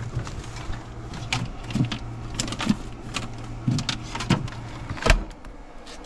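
Clicks and knocks of hands handling a compressor fridge, its door and plastic shelf, over a steady low hum that stops about four seconds in. A heavier knock comes about five seconds in.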